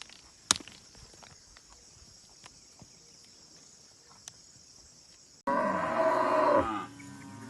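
Faint high hiss with a few sharp clicks, then suddenly a cow mooing loudly for about a second and a half, its pitch dropping as it ends, with a quieter low call after it.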